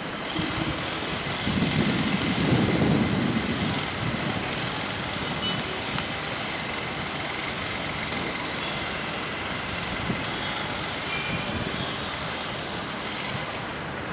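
Steady background traffic noise, with a low rumble swelling about a second and a half in and fading by about four seconds.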